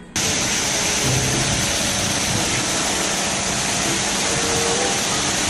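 Concrete mixer truck running, a steady loud noise with a hiss on top, cutting in and out abruptly.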